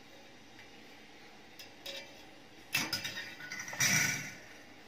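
Chrome wire guard of a stand fan clinking and rattling as it is handled after its clips are undone. A couple of light clicks come first, then sharper metallic clinks about three seconds in and a louder rattle of the wire cage near the end.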